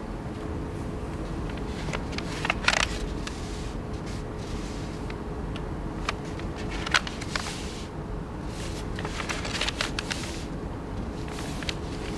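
A sheet of writing paper being handled and folded by hand into a long narrow strip: crisp rustles and creasing swishes at irregular intervals, the loudest about a quarter of the way in and about halfway, over a steady background hum.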